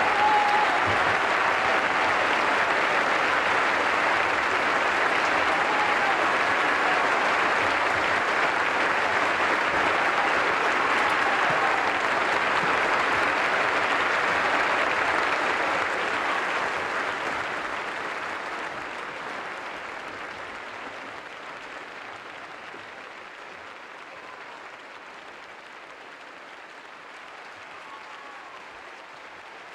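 Large audience applauding steadily, with a few voices calling out over the clapping; the applause fades out from about halfway through.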